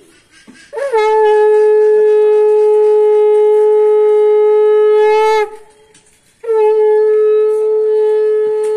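Conch shell (shankha) blown in two long, steady blasts on one note: the first lasts about four and a half seconds, and the second starts about six and a half seconds in. It is sounded as part of a Hindu puja offering.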